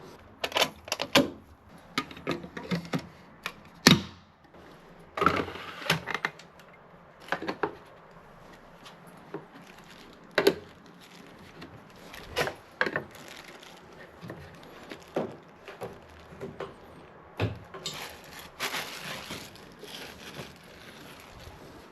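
Irregular clicks, taps and knocks of hard parts being handled and set in place, some sharp and loud, with a longer rustling scrape near the end.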